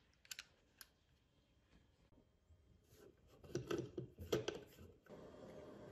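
Light clicks and knocks of a plastic cable tie gun and a small screwdriver being handled, mostly in a cluster about three to four and a half seconds in. A faint steady hiss follows.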